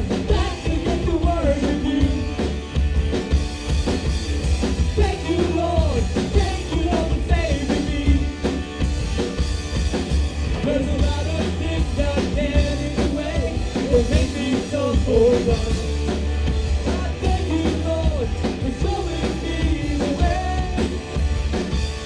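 Live rock band playing an instrumental break: a melody line over bass, drum kit, electric guitar and tambourine, with a heavy, steady low end.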